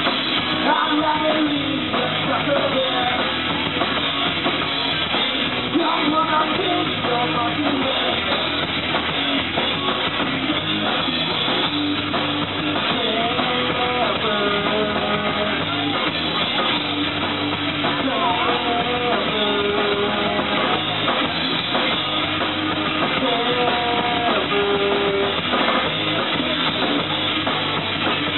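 Rock band playing live: electric guitar, bass guitar and drum kit, with a lead singer. The recording is muffled, with no treble.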